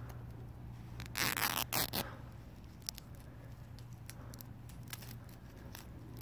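Gorilla Tape being torn lengthwise into thin strips by hand: a ripping sound in two quick pulls about a second in, then faint crinkles and ticks as the strips are handled.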